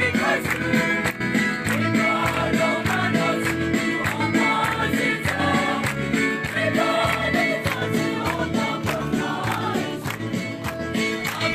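A large crowd singing a hymn together in chorus, with a steady beat of hand claps and drum strokes about two to three times a second.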